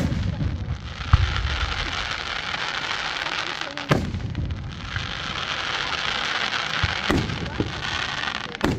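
Aerial firework shells bursting: five sharp bangs roughly one to three seconds apart, with a steady hiss of noise between them.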